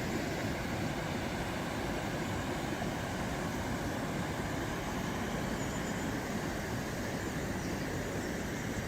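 The River Tees rushing steadily over rocks in a shallow, fast-flowing stretch.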